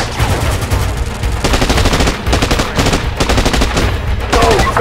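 Paintball markers firing rapidly: a fast volley of shots lasting about two seconds, starting about a second and a half in, over a music track with a steady heavy bass.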